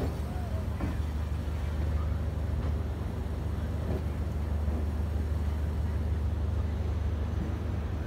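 Diesel engine of a DEMU (diesel-electric multiple unit) power car running steadily with a low, even drone, together with the rumble of the moving train, heard from alongside the train.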